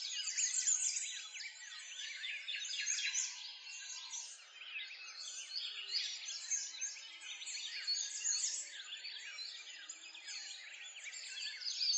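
A chorus of many songbirds chirping and singing at once, a dense and continuous tangle of short high calls and quick whistles.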